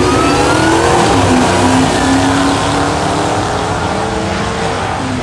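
V8 pickup truck engine at full throttle during a drag race: the pitch climbs, drops at a gearshift about a second and a half in, then climbs again.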